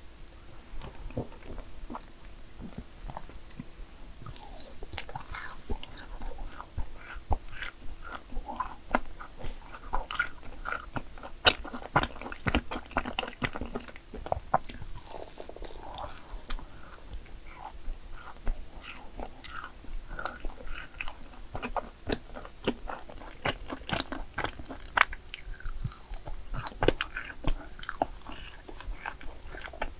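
Close-miked eating of yakgwa cookies: irregular crisp crunches and wet chewing clicks, several each second.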